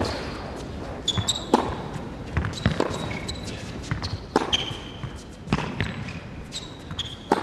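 Tennis rally on a hard court: sharp pops of rackets striking the ball and the ball bouncing, with short high squeaks of tennis shoes braking and turning on the court between shots.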